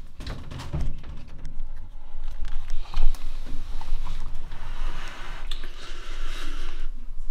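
Camera handling noise as the camera is grabbed and moved about: rustling and scraping against the microphone with scattered knocks, the sharpest about three seconds in.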